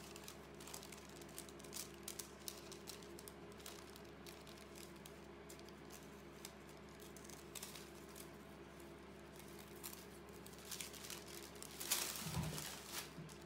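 Scissors snipping through patterned collage paper, many small faint clicks, over a steady low hum. There is a brief louder noise near the end.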